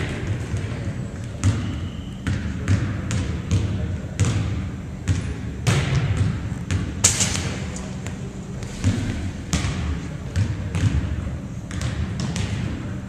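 Volleyballs being served and bouncing on a hardwood gym floor: a steady run of sharp smacks and thuds, one or two a second, echoing in the hall.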